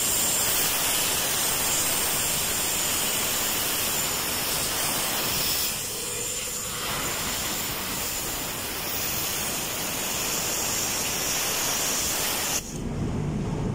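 Compressed air hissing steadily from a blow gun, blowing dust out of the freshly polished oil-seal bore of a gear pump casing. The hiss eases briefly about six seconds in and cuts off suddenly near the end.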